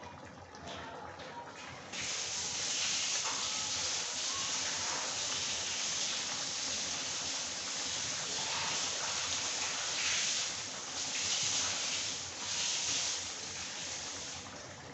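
Chana dal boiling in a kadhai: a steady bubbling hiss that grows louder about two seconds in and swells a few times later on.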